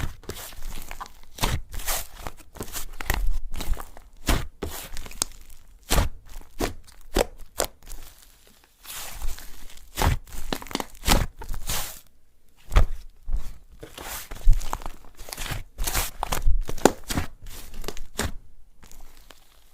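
Slime being squished, stretched and pressed by hand: an irregular run of sharp clicks, pops and tearing crackles, with a couple of brief pauses.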